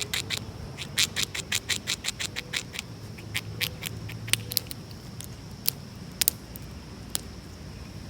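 Squirrel gnawing and cracking a nut with its teeth: a quick run of sharp crunching clicks, about four or five a second, thinning after about three seconds to a few scattered cracks.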